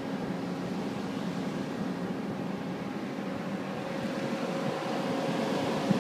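Steady drone of a ship's engines and machinery with a few held tones, getting slightly louder in the last two seconds.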